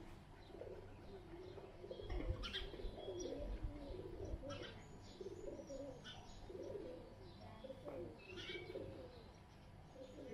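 Doves cooing over and over in low, wavering phrases, with short high bird chirps scattered among them and a single knock about two seconds in.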